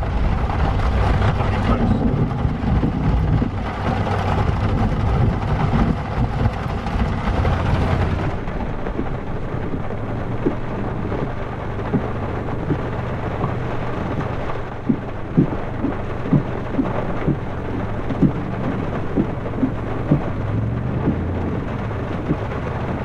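Heavy rain in a thunderstorm, with a low rumble under it. About 8 seconds in the sound turns abruptly duller: rain drumming on the truck over a steady low engine hum, with many sharp, loud drop strikes in the second half.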